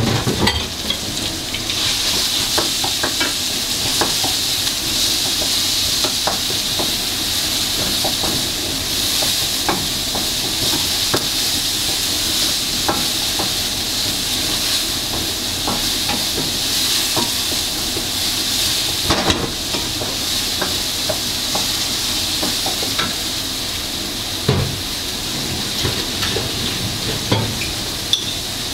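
Food frying and sizzling in a pan, with the steady hiss of the frying broken by frequent clicks and scrapes of a utensil stirring. There are a few louder knocks, one about two-thirds of the way through.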